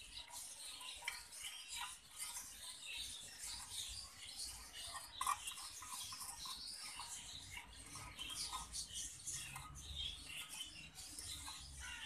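Faint scraping and light clicking of a small plastic spoon stirring liquid hand-feeding formula in a glass bowl.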